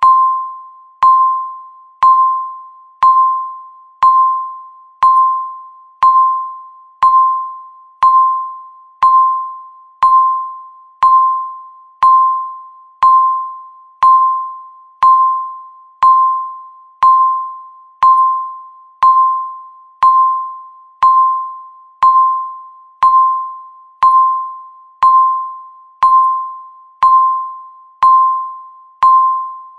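Countdown timer beeping once every second: a single steady electronic tone that starts sharply and fades away before the next beep, about thirty beeps in a row.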